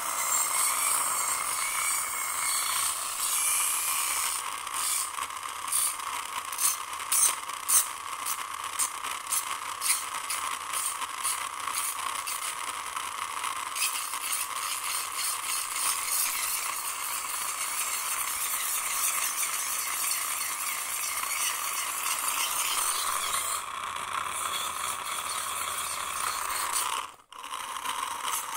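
Crumpled aluminium foil rustling and scraping against a plastic toy car's underside: a steady scratchy rustle with bursts of crackling clicks in the first dozen seconds, breaking off sharply near the end.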